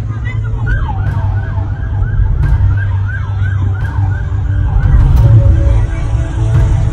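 Police vehicle siren in a fast yelp, rising and falling about three times a second over a steady low rumble. It fades after about five seconds.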